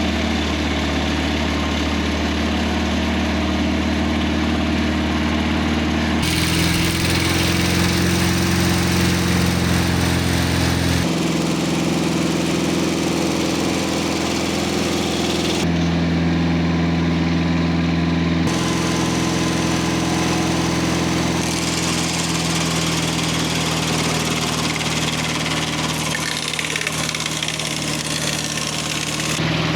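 Mobile Dimension circle sawmill running, its engine humming steadily while the blade cuts through poplar. The sound shifts abruptly several times.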